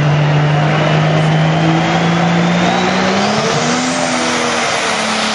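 Turbocharged diesel engine of a Pro Stock pulling tractor running hard at high, steady revs, then revving higher about halfway through as it throws up exhaust smoke at the start of a pull. The turbocharger's whine climbs in pitch with the engine.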